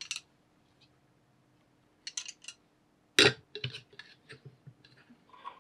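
Metal gooseneck lamp arms being handled: a few light metallic clicks, one sharper knock a little after three seconds in as an arm is set against the metal bracket on the lamp base, then a scatter of small ticks.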